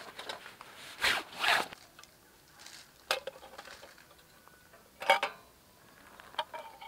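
Two short rasping swishes, then a few sharp clicks and a clink that rings briefly, as a Dietz railroad hurricane lantern is handled on its stand. The clink, about five seconds in, is the loudest.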